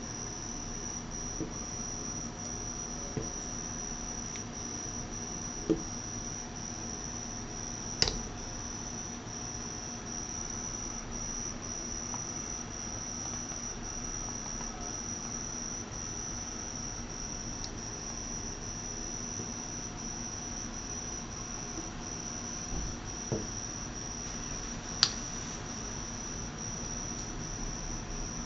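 Crickets trilling steadily at a high pitch, with a few sharp clicks, the loudest about eight seconds in and near the end.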